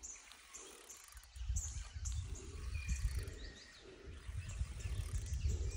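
Gusts of wind buffeting the microphone in uneven low rumbles starting about a second and a half in, with small birds chirping and whistling.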